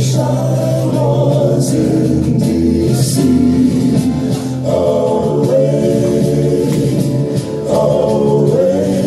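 A man singing into a microphone over recorded backing music played from a laptop, with long held notes.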